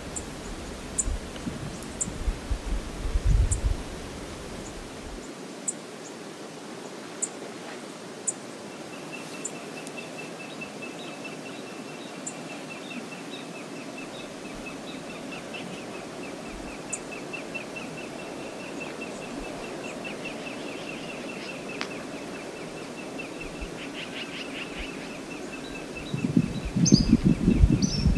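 Outdoor river ambience: a steady wash of wind and flowing water, with short high bird chirps early on and a bird's rapid, evenly pulsed trill from about nine seconds in. Low gusts of wind buffet the microphone at the start and, loudest, near the end.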